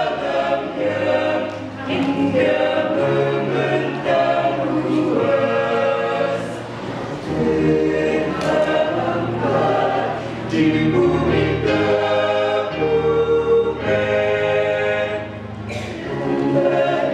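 Mixed choir of girls' and boys' voices singing a hymn in harmony, in phrases of a few seconds each.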